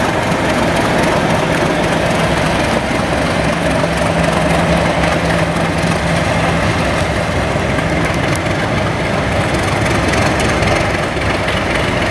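Class 37 diesel locomotive's English Electric V12 engine running steadily as the train moves away, with a low hum through the first half.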